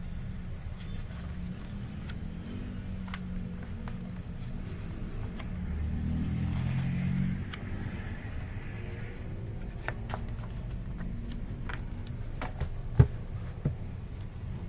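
Glossy pages of a large book being turned and handled, with small clicks and rustles and a sharp knock near the end as the book is closed. Under it runs a low steady rumble that swells for a moment midway.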